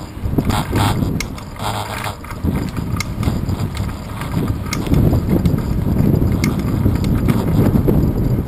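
Wind buffeting the microphone of a handlebar-mounted action camera on a moving bicycle, with the bike and camera mount rattling and clicking over the bridge walkway's joints and plates. A couple of short scraping hisses come in the first two seconds, and the wind rumble grows stronger after about five seconds.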